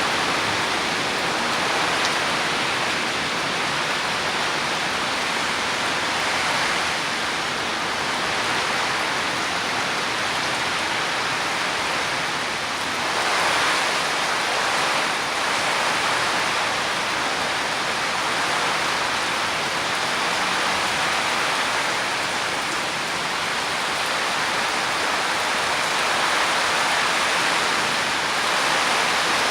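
Heavy downpour: a steady, dense rush of rain with no individual drops standing out.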